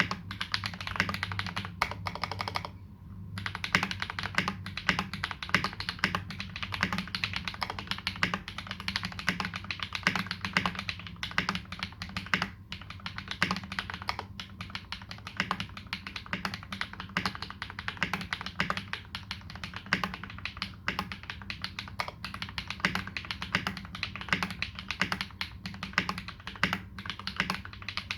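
Continuous fast typing on a KBD75v2 custom mechanical keyboard with lubed Holy Panda tactile switches and GMK ABS keycaps: a dense patter of keystrokes, with a brief pause about three seconds in.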